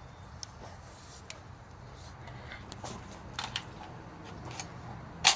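Equipment being handled: scattered light clicks and rattles over a low steady hum, with one sharp click near the end.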